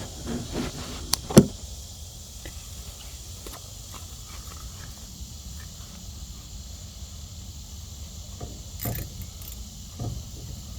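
A few sharp clicks and knocks of hand tools against metal engine parts, the loudest about a second and a half in, with fainter ones near the end, over a steady low hum.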